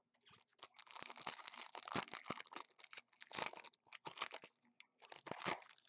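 Foil wrapper of a 2015 Panini Prestige football card pack being torn open and crinkled by hand, in a run of irregular crackling bursts over several seconds.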